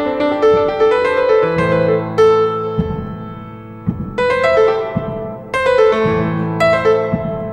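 Piano music: a slow repeating figure of struck single notes that ring and fade, over deeper notes.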